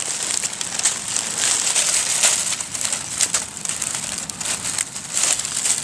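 Dry leaf litter crunching and crackling underfoot, with irregular louder crunches, like someone walking through a forest floor.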